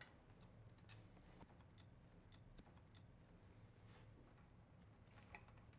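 Near silence with a few faint, scattered metal clicks as an Allen key works the sensor mount's screws loose, the most distinct about five seconds in.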